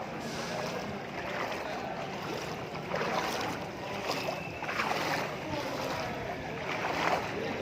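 A bus driving through floodwater: a steady rush of water against the wheels and body, swelling every second or so, with the vehicle's running noise underneath.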